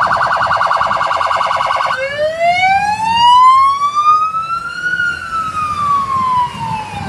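Police car electronic siren: a fast warbling tone for about two seconds, then it switches to a slow wail that rises for about three seconds and falls again.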